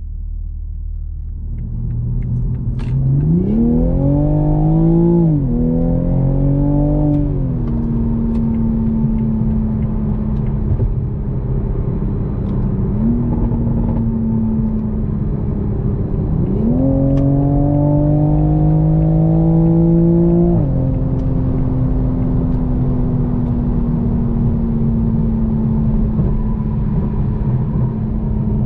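2020 Toyota GR Supra's 3.0-litre turbocharged inline-six heard from inside the cabin, accelerating twice. On the first pull the engine note climbs, drops at an upshift of the 8-speed automatic and climbs again before settling to a steady cruise. A second longer pull rises steadily and then falls back as the driver eases off.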